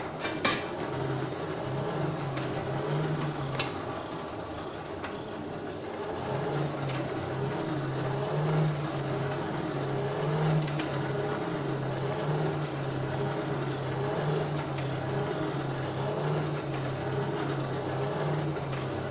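Forge blower running, driving air into the fire as the welded bar heats, with a low hum that wavers between two close pitches. A sharp metallic click sounds about half a second in.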